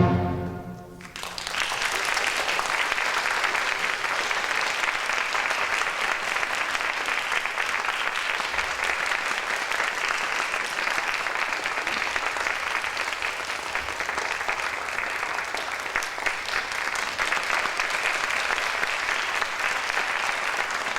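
Audience applauding steadily after the last chord of the orchestral recording fades in the first second.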